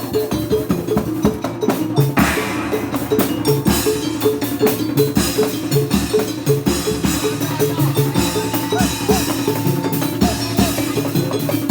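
Obrog music from an Indramayu street ensemble: drums and percussion over a steadily repeating pitched note, with the drumming getting busier about two seconds in.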